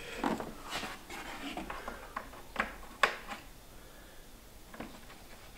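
Light handling noises from a car door panel and its wiring being fitted: scattered rustles and small clicks, with two sharper clicks a little past the middle.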